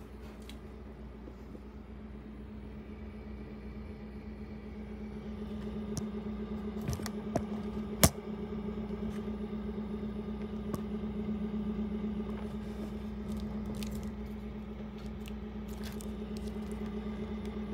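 Steady low hum from the running home-built laser galvo rig, a little louder midway, with scattered light clicks and one sharp knock about eight seconds in.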